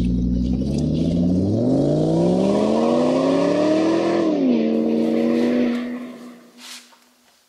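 Car engine revving: its pitch climbs for a couple of seconds, drops suddenly, holds steady briefly, then fades out about six seconds in.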